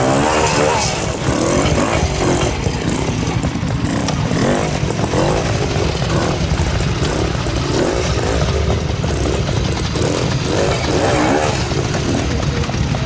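Lightweight classic trials motorcycle climbing a rocky section, its engine blipped again and again, the revs rising and falling over a steady low running note.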